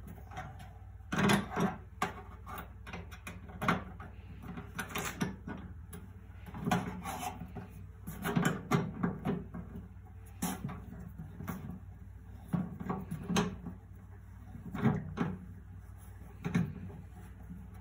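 Wrench tightening nuts and bolts on a sheet-metal bucket: irregular metal clinks and knocks in small clusters, the louder ones about a second in and again around the middle.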